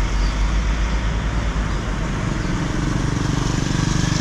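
Road vehicle under way: a steady low rumble of engine and road noise, with the engine hum growing stronger about halfway through.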